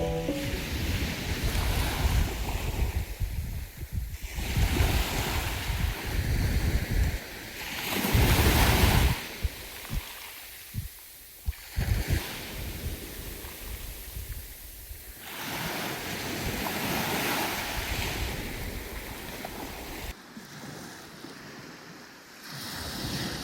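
Sea waves washing onto a beach, the surf swelling and falling back every few seconds, with wind buffeting the microphone.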